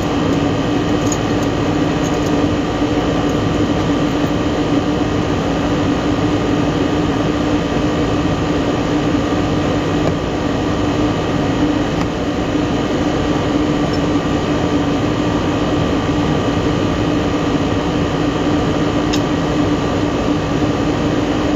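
Rooftop HVAC equipment running with a steady, even drone and a constant hum.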